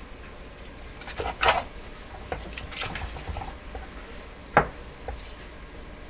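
Scattered light clicks and knocks of a radio chassis being handled on the workbench, with one sharp click about four and a half seconds in.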